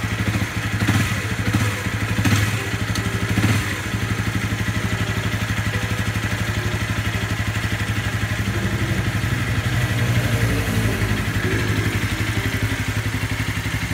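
Honda CBR300R's single-cylinder engine idling with an even pulse, revved briefly three times in the first few seconds, its crankshaft failing.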